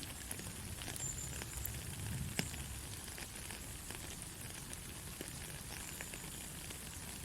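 Soft, steady rain: an even hiss of falling rain with scattered single drops ticking, and one sharper drip about two and a half seconds in.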